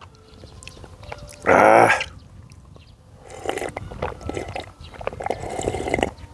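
Ramen noodles being slurped and chewed, with wet clicks and smacks, from about three seconds in. About a second and a half in there is a short vocal sound from the eater.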